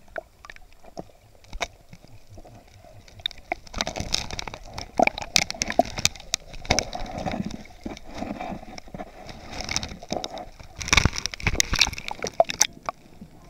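Seawater sloshing and gurgling around a submerged waterproof camera, muffled, with many small clicks and knocks as it moves through the water. A few louder splashes come near the end as the camera reaches the surface.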